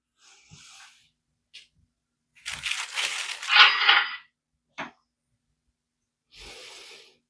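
A freshly sharpened fixed-blade knife slicing through rope: a crackling, tearing sound of fibres parting, about a second and a half long, starting a couple of seconds in. Softer rustles and a couple of short clicks come before and after it.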